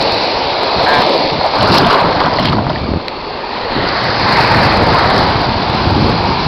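Sea surf washing through shallow water at the shoreline, with wind rushing on the microphone. The sound swells and eases, dipping briefly about three seconds in.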